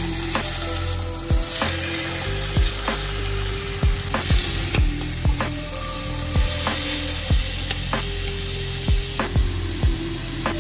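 Soy-and-honey-marinated squid sizzling steadily as it sears in hot oil in a frying pan. Background music with a steady beat plays over it.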